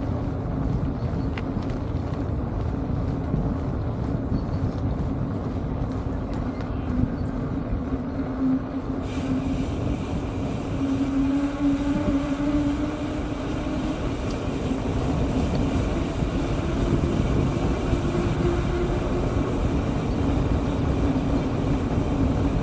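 Wind buffeting the microphone and tyre rumble from a bicycle rolling along a paved road, with a low hum that drifts slightly in pitch.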